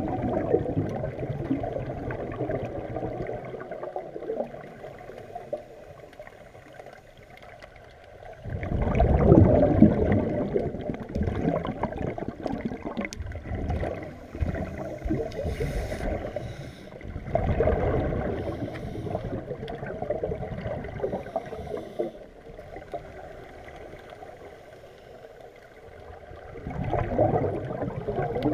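Scuba diver breathing through a regulator, recorded underwater: muffled bubbling rushes of exhaled air come about every nine seconds, three times, with quieter stretches between.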